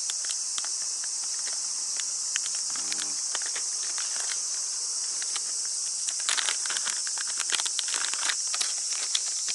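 Steady, loud chorus of cicadas, with the crackle and rustle of a plastic lure package being torn open and handled. The crackling is thickest from about six seconds in.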